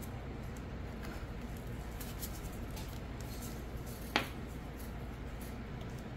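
Plastic mixing cups and tools being handled on a work mat: a few faint clicks, then one sharp click about four seconds in, over a steady low hum.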